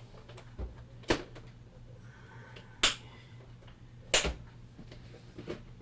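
Three sharp clicks, about a second and a half apart, among lighter ticks from small objects being handled, over a low steady hum.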